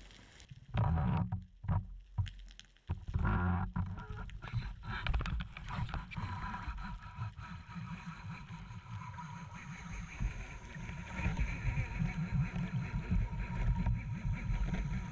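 Underwater noise picked up by an action camera mounted on a speargun: a low rumble of water moving past the housing, with clicks and knocks as the gun is handled. A faint steady whine comes in about five seconds in.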